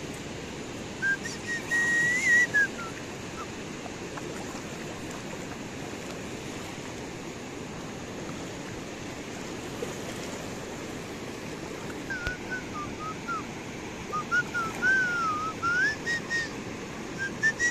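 A fast, silty river rushing steadily, with someone whistling a wavering tune over it, briefly about a second in and again through the last six seconds.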